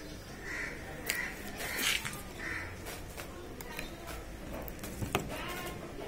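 Three short harsh animal calls close together in the first few seconds, with a couple of sharp clicks.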